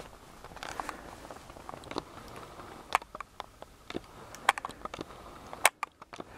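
Faint handling noise: scattered small clicks and taps over a low hiss, the sharpest about three seconds in and again near the end.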